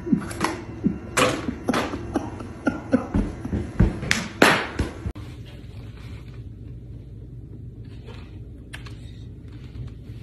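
A cat knocking a plastic water bottle against its metal food bowls: a rapid run of hard knocks and clatters, cut off suddenly about five seconds in, after which only quiet room sound with a few soft bumps remains.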